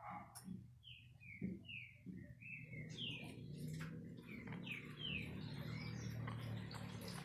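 A small bird singing a run of short, falling chirps, about two a second, over a steady rushing noise that builds from about three seconds in.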